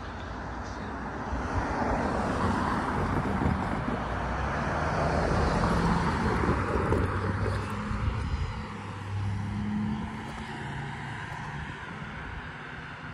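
Amtrak passenger train passing: the diesel locomotive's engine running under a rush of wheels on the rails. It grows louder, peaks a few seconds in, and fades toward the end.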